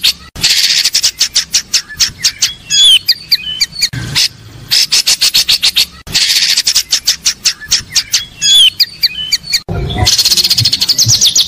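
Recorded songbird song of the kind played to train caged murai batu: a fast run of sharp chip notes, then a few quick warbled whistles, with the same phrase heard twice. A different rapid trill starts near the end.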